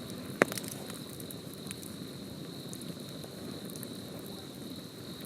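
Wood campfire burning with a low steady rush and scattered crackles, and one sharp loud pop about half a second in.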